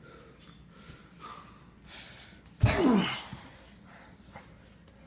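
Scuffling during a hardcore wrestling match, then a sudden heavy thud about two and a half seconds in, followed straight away by a short grunt that falls in pitch.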